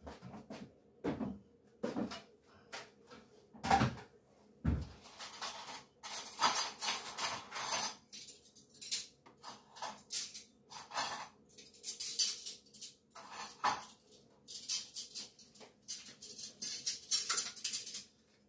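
Dishes and cutlery clattering as a table is set: scattered knocks and clinks at first, then from about six seconds in a busy run of short scraping, rustling noises.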